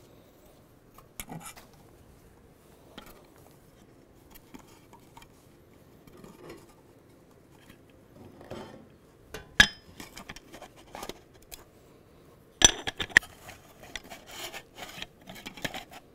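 Metal clutch parts and tools handled on a workbench: scattered light clinks and scrapes, with a sharp clink a little past halfway and a quick cluster of clinks about three quarters of the way through.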